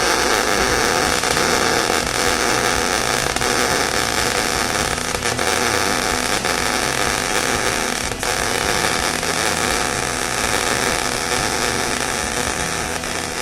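Electric arc welder running a continuous weld, joining steel pieces onto a steel barbecue lid: a steady, even hiss with no breaks.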